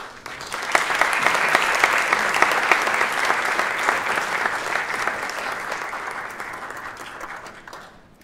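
Audience applauding, swelling within the first second and dying away gradually toward the end.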